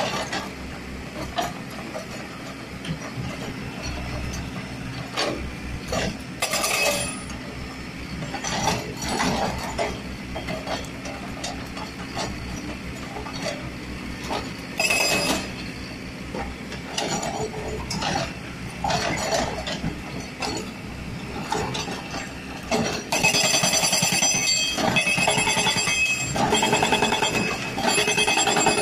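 Hydraulic rock breaker on a Komatsu excavator hammering into quarry rock, with the excavator's diesel engine running under it. Irregular metallic knocks and rattles, turning into loud continuous rapid hammering about three-quarters of the way through.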